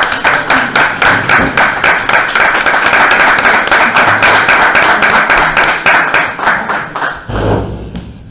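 Small audience applauding, with dense, fairly even claps that die away near the end.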